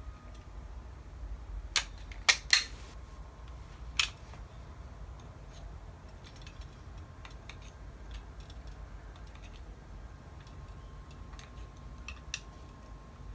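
Plastic toy .45 ACP rubber-bullet revolver being handled: a handful of sharp plastic clicks about two to four seconds in as the cylinder is opened, then a run of faint small clicks as cartridges are pressed into the cylinder.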